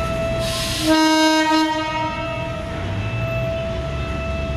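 Commuter train horn sounding one blast of about a second and a half, about a second in. A steady high whine runs underneath.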